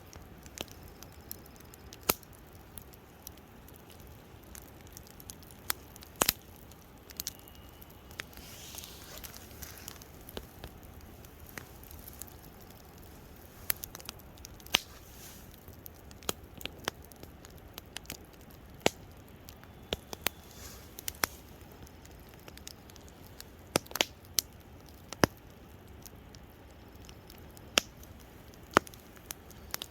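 Wood campfire crackling, with irregular sharp pops a few seconds apart over a low steady hiss.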